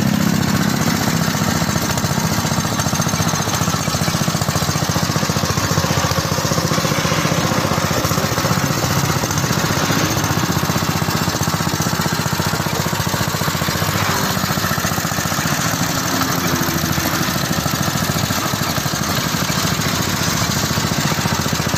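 Small motor-driven sugarcane squeezing machine running steadily, its rollers crushing cane stalks fed through the press.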